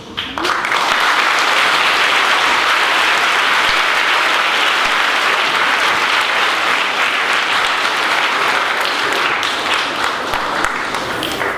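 An audience of schoolchildren and guests applauding steadily in a hall after a recited poem, with dense clapping that starts about half a second in and eases slightly near the end.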